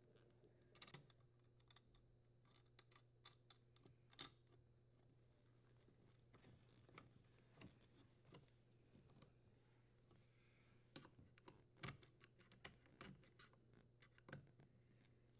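Near silence with faint, scattered small clicks and taps, from hands working the strain relief nut and wiring at the dishwasher's electrical junction box.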